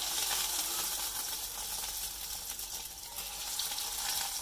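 Breaded potato-and-chicken tikki patties frying in hot ghee in a shallow pan: a steady sizzling hiss with fine crackling.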